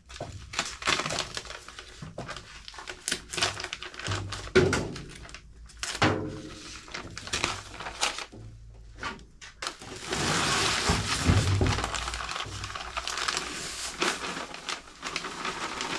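Paper sack of mud bed mortar mix handled and torn open in a wheelbarrow, crinkling and thumping. About ten seconds in, a steady hiss as the dry mix pours out of the sack into the barrow.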